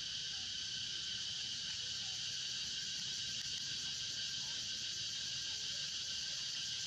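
Steady, unbroken chorus of insects in the forest: a continuous high-pitched buzzing trill.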